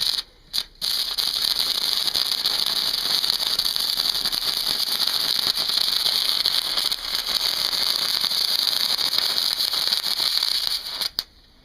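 Stick-welding arc powered by three 12-volt car batteries in series (36 V), struck with a few short crackles and then crackling steadily for about ten seconds before cutting off near the end.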